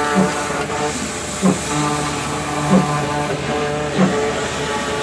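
Concrete pump for a 3D house printer running, with a knock about every second and a quarter (four strokes) over a steady mechanical hum and whine.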